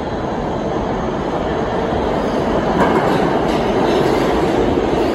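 R160 subway train pulling into the station out of the tunnel: the steady noise of its wheels on the rails grows louder, stepping up about three seconds in as the front car reaches the platform.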